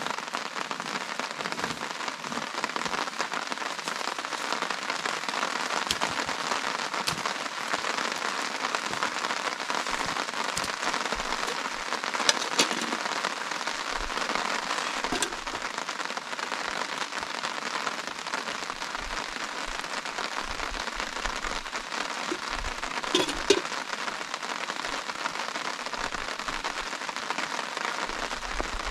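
Steady rain falling and pattering on a surface, with a few sharp taps: two a little before halfway and a louder one later.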